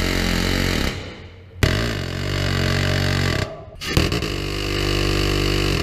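Phalanx close-in weapon system's 20 mm six-barrel Gatling cannon firing long bursts, an unbroken buzzing "zipppppp". One burst ends about a second in, a second runs for about two seconds, and a third starts about four seconds in.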